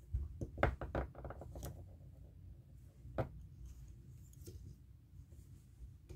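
A quick run of small clicks and knocks, then a single louder knock about three seconds in, from hands working a fly on a tying vise with the thread bobbin.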